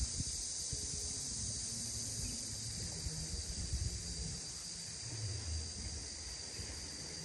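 Steady high-pitched chirring of insects, crickets or cicadas, under a low uneven rumble of wind or handling on the microphone.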